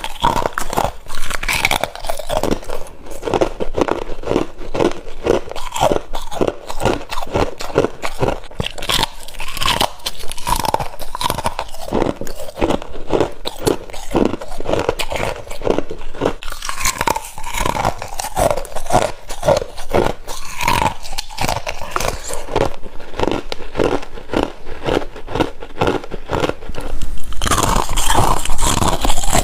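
A person biting and chewing freezer frost: dense crisp crunches, several a second, getting louder near the end.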